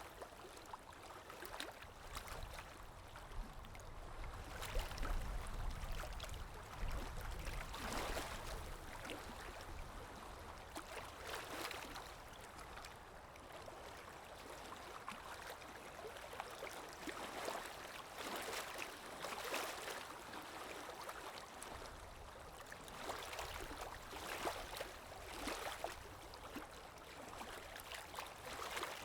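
Small waves lapping and splashing irregularly against a shore or hull, with a low wind rumble that swells for a few seconds near the start and again near the end.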